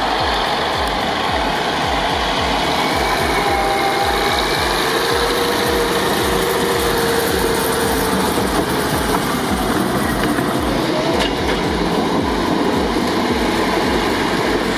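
Heavy logging truck's diesel engine running steadily, with a low even pulsing.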